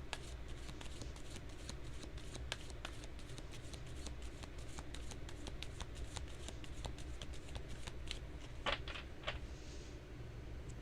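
A deck of tarot/oracle cards being shuffled by hand, a steady run of quick soft flicks, with a few sharper snaps about nine seconds in.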